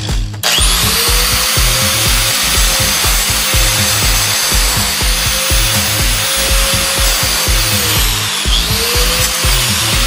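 Angle grinder starting up about half a second in and running with a steady high whine as it grinds an iPhone 6's metal body. Near the end its pitch sags briefly under load, then climbs back. Background music with a steady beat plays under it.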